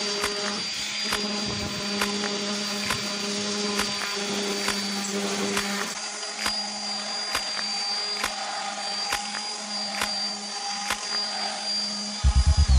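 Electric orbital sander running on wooden planks: a steady motor whine with scattered light ticks.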